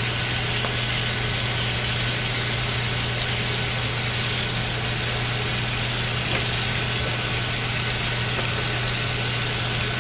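Steaks searing in butter in a cast-iron skillet, a steady sizzle, with a constant low hum underneath.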